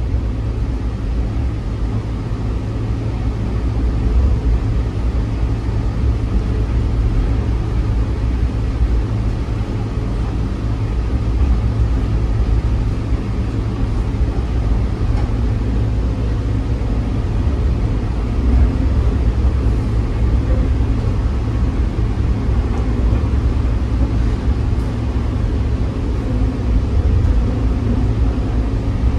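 Steady low rumble of the Toronto Pearson Terminal Link's cable-hauled people-mover car running along its elevated guideway, heard from inside the car.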